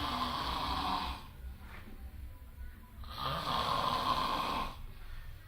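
A person snoring: two long, noisy snores, each about a second and a half, about three seconds apart, with quieter stretches between.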